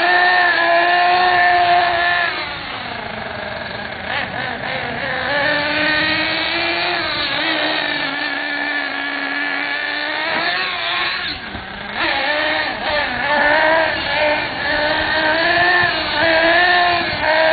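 Gas-powered RC buggy's small two-stroke engine buzzing at high pitch as it drives, revving up and down over and over. It eases off a couple of seconds in and again about two-thirds of the way through, then revs hard again toward the end.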